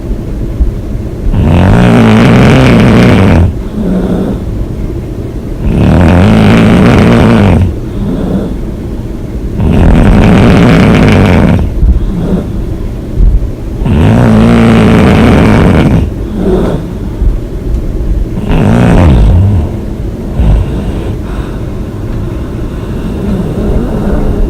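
A woman snoring loudly in long, rumbling snores about every four seconds, each lasting around two seconds, five in all, the last one shorter. Quieter breathing runs between the snores.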